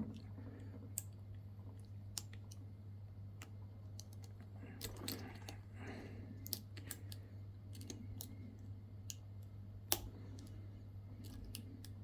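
Lock pick working the pins of a pin-tumbler lock under a tension wrench: scattered light clicks and scrapes, with one sharper click about ten seconds in, over a steady low hum.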